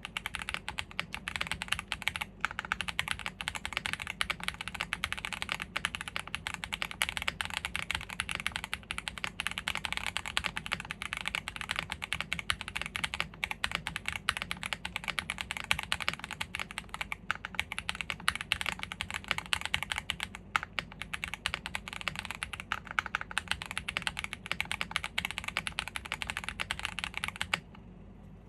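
Continuous fast typing on a gasket-mounted Owlabs Jelly Evolv custom mechanical keyboard with a polycarbonate plate, factory-lubed WPJ Diamond Avalon switches and GMK keycaps. The dense stream of key clacks stops abruptly about a second before the end.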